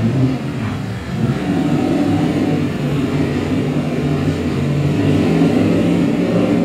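Ultra4 4500-class off-road race car's engine running under load as it drives over rocks, its pitch rising and falling as the throttle changes.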